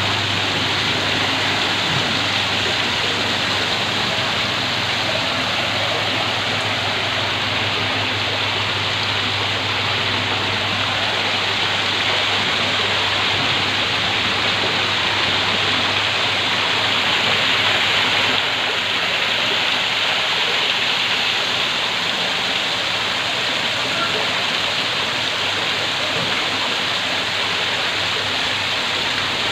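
Small multi-tiered garden waterfall, water splashing steadily off stone ledges into a pond. A faint low hum sits underneath and stops about two-thirds of the way through.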